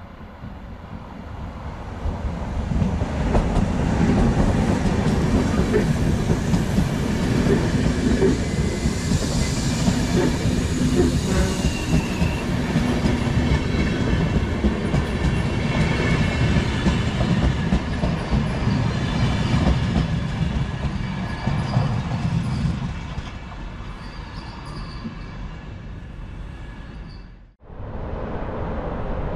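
A train passing close by: wheels on the rails with a clattering rhythm and faint wheel squeal. It builds over the first few seconds and eases off after about twenty seconds. Near the end it breaks off suddenly and a quieter steady rumble takes over.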